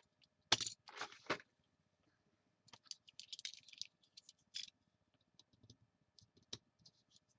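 Craft tools and paper being handled: a few sharp clicks and taps, then about two seconds of light scratchy scraping on paper, with scattered faint clicks near the end.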